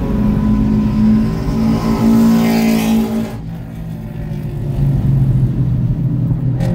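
Car engine heard from inside the cabin, running at high revs, until the throttle is lifted abruptly a little over three seconds in and the note drops away for braking into a corner. Near the end the engine picks up again at lower revs.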